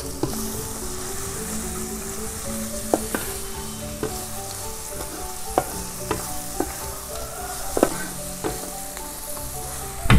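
Papaya flowers and dried anchovies sizzling as they are stir-fried in a metal wok, with a metal spatula clinking and scraping against the pan several times; the sharpest clink comes near the end.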